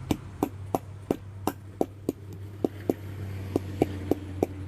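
Hammer tapping a new flanged bearing into the front axle of a John Deere D130 ride-on mower, about a dozen sharp strikes at roughly three a second, over a steady low hum.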